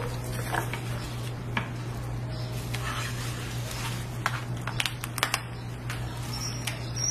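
A crisp crepe handled and folded in plastic-gloved hands: light rustling and a few sharp crackles and clicks, mostly in the second half, over a steady low hum.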